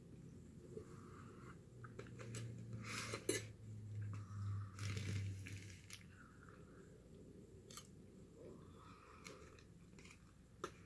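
Close-up chewing and biting of roast chicken, with crunching and sharp wet mouth clicks. A low steady hum runs for a few seconds in the middle.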